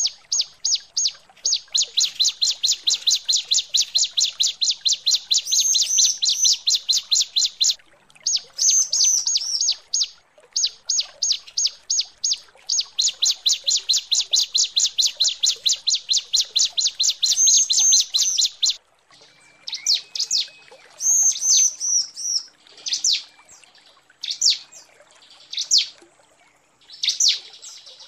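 Female bar-winged prinia (ciblek) calling to males. It gives long rapid runs of sharp high notes, several a second, broken by brief pauses. In the last third the notes come singly and unevenly spaced.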